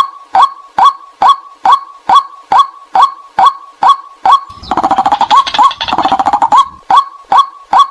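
White-breasted waterhen calling, a short downward-swept 'kwak' repeated evenly about twice a second. Midway there is a two-second burst of denser, overlapping calling, after which the steady calls resume.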